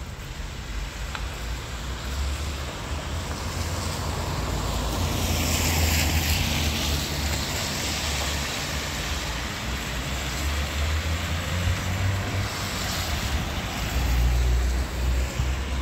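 Car tyres hissing on a wet road as traffic passes. One car passes close, swelling to a peak about six seconds in, and a low rumble of engines and wind runs underneath.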